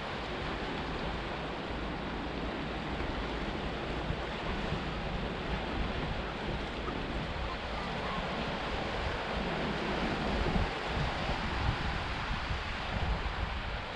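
Sea waves washing and surging into a rocky sea cave: a steady rush of surf with a low rumble, swelling a little louder with a few heavier surges from about ten seconds in.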